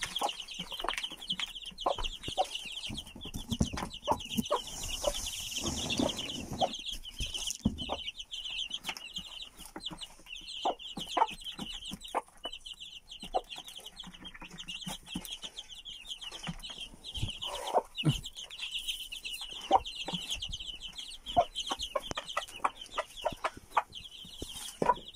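Small chicks peeping continuously in quick high chirps, with a mother hen clucking among them and scattered light taps.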